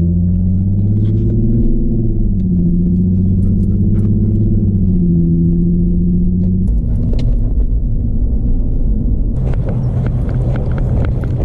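Car engine heard from inside the cabin, running at low revs with its pitch slowly rising and falling as the car creeps along. It shuts off about seven seconds in. Near the end a broad rushing outdoor noise with scattered clicks takes over.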